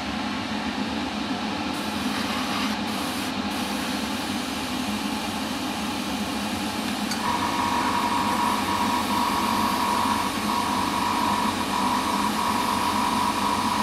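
Hobby spray booth extractor fan running steadily, with a steady high whistle joining about halfway through.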